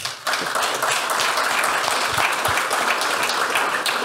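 Audience applauding, starting a moment in and going on steadily.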